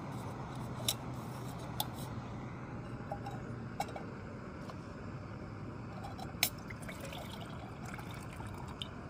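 Small gas camping stove burning with a steady hiss on its screw-on canister. A steel mug clinks a few times as it is set on the burner, and water is poured into the mug near the end.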